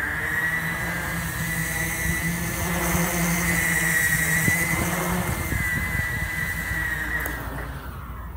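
3D-printed DJI Inspire-clone quadcopter's motors and propellers whining through a short flight. The pitch rises as the throttle comes up for lift-off at the start, holds with small wavers, then drops near the end as it comes back down.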